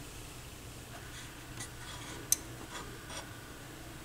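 Light clicks and ticks from the opened Sony PS-FL7II linear-tracking turntable and the hand working its mechanism after start is pressed, with one sharp click a little over two seconds in.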